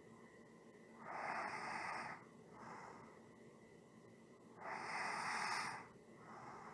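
Slow, even human breathing. Two breath cycles pass, each a louder breath of about a second followed by a shorter, softer one.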